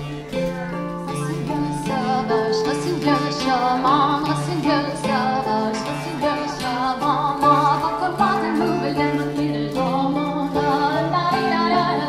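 Live folk band playing a dance tune: a steady drone under a wavering sung melody, with harp, cello and guitar.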